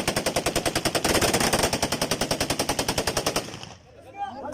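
Automatic rifle fire, one long burst at about ten shots a second, stopping about three and a half seconds in. Voices rise near the end.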